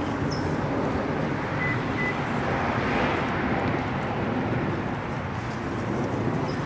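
Road traffic noise: a steady rumble with a passing vehicle that swells loudest about three seconds in and fades.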